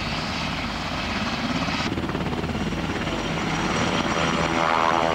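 UH-60 Black Hawk medevac helicopter running close by: a steady rotor chop, with an abrupt change about two seconds in, then a turbine whine that builds and grows louder through the second half.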